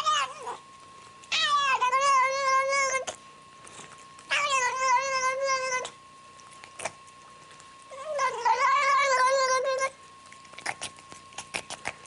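Domestic cat giving long, drawn-out wavering yowls, three of them about two seconds each with pauses between. A few sharp clicks come near the end.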